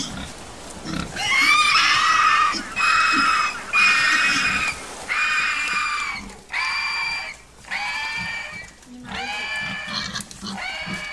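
A series of about eight high-pitched squeals, each under a second to about a second long with short gaps between them, loudest in the first few seconds.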